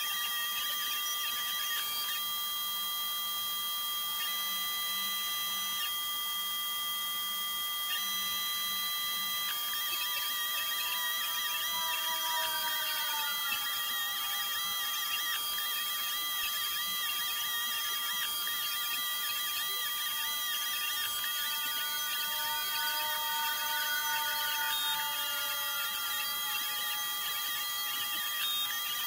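Snapmaker machine's stepper motors running as its blade-holder toolhead traces puzzle cuts through foam board. Several steady high tones hold throughout, and from about ten seconds in softer tones glide up and down in pitch as the moves change speed.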